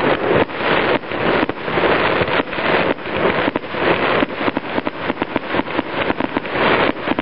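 Aerial fireworks bursting overhead: a dense, unbroken run of sharp cracks and pops from gold crackling shells, coming faster in the second half.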